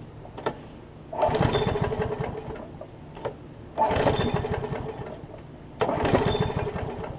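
Briggs & Stratton Quantum single-cylinder mower engine pull-started three times. Each pull cranks and sputters for under two seconds and then dies away: the engine fails to restart.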